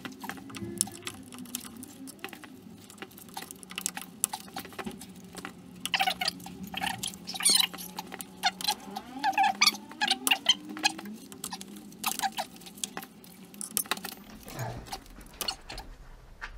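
Thick rubber high-voltage insulating gloves rubbing, squeaking and clicking against the plastic high-voltage plug of a Renault Twizy's traction battery as its locking tab, button and sleeve are worked to unplug it. The scratching and squeaking come in short spells, heaviest in the middle, over a faint steady low hum.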